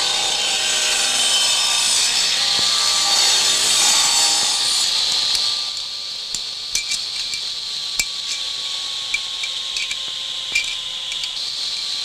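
A metal lathe cutting a metal workpiece: a loud scraping hiss with several shifting squealing tones for about the first five seconds. Then a quieter steady hiss with scattered sharp metal clinks of a spanner at work on a motorcycle.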